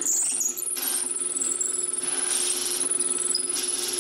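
Drill press running with a pen barrel trimmer spinning in the chuck: a steady motor hum and a high whine, with short scraping sounds about a second in, around two and a half seconds in, and near the end.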